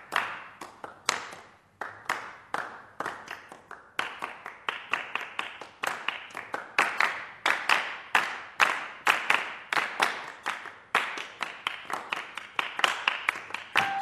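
Rhythmic hand clapping by an ensemble of performers, played as a percussion passage within the piece: quick, interlocking claps several per second, with no piano notes.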